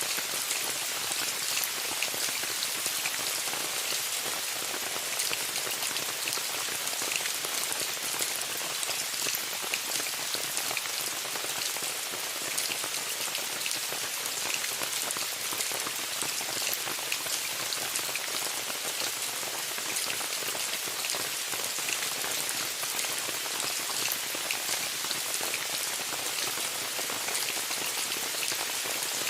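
Steady rain pattering on a tent, a dense even hiss with many fine drop ticks.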